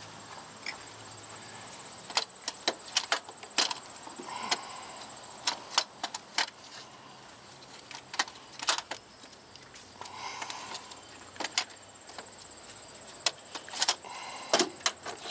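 Scattered sharp metallic clicks and knocks, with light rustling between, as an unbolted car starter motor is worked up and out between hoses and engine parts.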